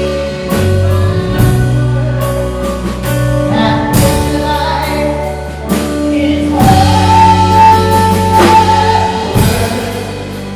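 Live rock band playing an instrumental stretch of the song: drum kit and cymbal strikes over bass and held chords, with a long sustained high note in the middle. The music tapers off near the end.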